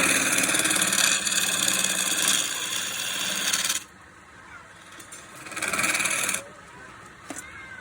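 Wood turning on a lathe: a turning tool worked against the spinning wood gives a loud rasping cut for about four seconds, then a second short pass about two seconds later, with the lathe running quietly in between.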